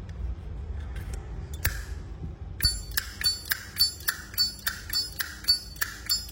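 Zippo lighter's metal lid flicked open and snapped shut again and again: a few loose clicks, then from a couple of seconds in a steady run of ringing metallic clicks, about three or four a second.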